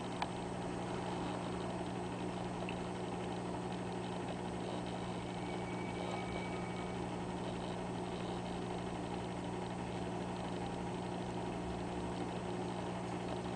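Steady low hum of running aquarium equipment, with a faint hiss over it.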